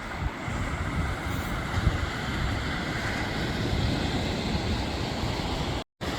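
Wind buffeting the microphone in irregular low gusts over a steady hiss of ocean surf; the sound cuts out for an instant near the end.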